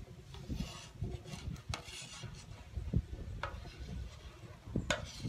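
A thin wooden turning stick scraping and sliding under a sheet of yufka on a hot metal griddle, with a few light clicks of wood on metal. A steady low wind rumble sits on the microphone.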